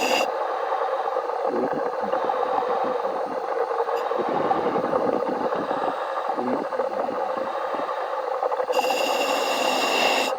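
A diver's helmet heard over the diving radio: a steady rush of breathing air with irregular bubbling surges from the exhaust. The welding power is switched off. A high electronic tone comes in near the end.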